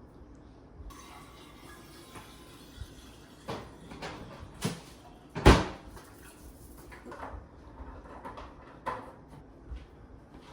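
Scattered knocks and clicks of objects being handled, with the loudest, a sharp knock, about five and a half seconds in.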